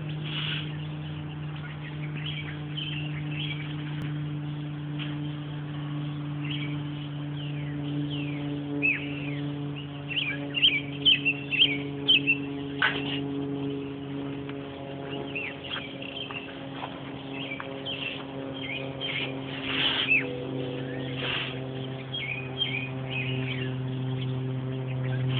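A pet bird chirping and calling in quick, repeated notes with fast pitch sweeps, loudest in a run of sharp calls partway through, over a steady low hum.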